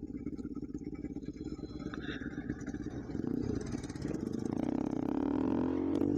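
Bajaj Pulsar RS200's single-cylinder engine running under way on a ride, a steady rapid firing beat that grows gradually louder toward the end.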